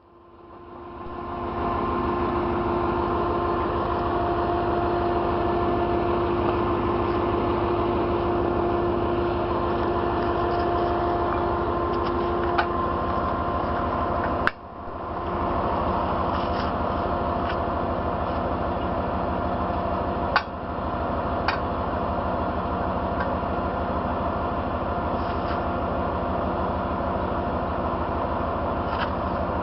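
Heavy tow truck's engine running steadily, with a steady whine over it and a few sharp clicks. The sound drops out briefly at the start and again about halfway through, then comes back.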